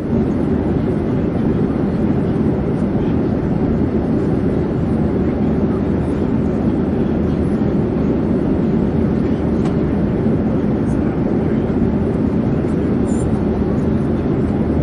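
Steady, unchanging drone of an airplane in flight: a deep, even rumble that holds the same level throughout.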